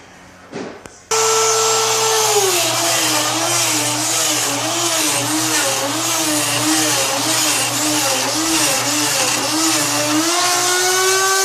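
Electric drill in a door mortising jig, switching on about a second in and boring the mortise-lock cavity in the door edge. Its motor whine drops in pitch as the bit bites into the wood, rises and falls at a steady rhythm as the bit is worked up and down, and climbs back near the end as the load eases.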